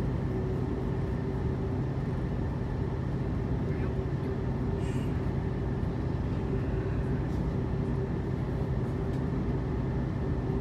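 Steady cabin noise inside an Airbus A330-300 before takeoff: the engines running at idle and the air conditioning, with a constant low hum under an even rush.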